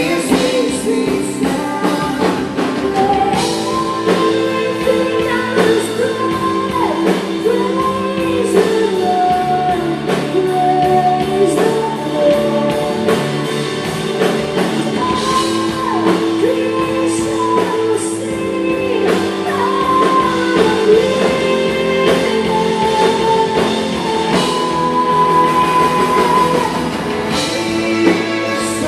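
Live worship band playing with a woman singing held, wavering notes over guitar and a steady drum beat, in a large hall.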